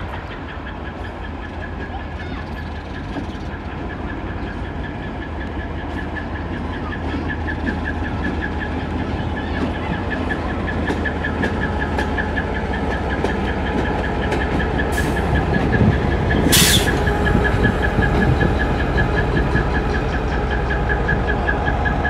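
A level-crossing warning bell rings in rapid, even pulses throughout while a diesel locomotive's engine rumble grows louder as it comes past close by. A brief loud hiss cuts in about two-thirds of the way through.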